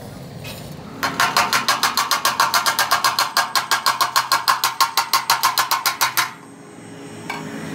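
A hand tool scraped rapidly back and forth over a fresh weld bead on steel tube, about eight or nine strokes a second. It starts about a second in and stops abruptly after about five seconds.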